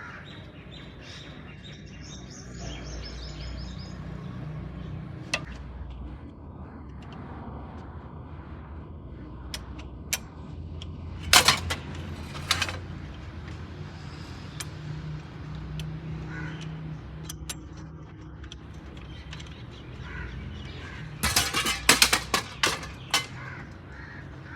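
A steady low hum with sharp knocks: a few loud ones about halfway through and a quick cluster of them near the end.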